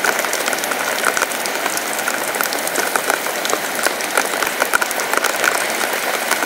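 Steady rain pattering on the tarp overhead: a dense run of drop ticks over an even hiss.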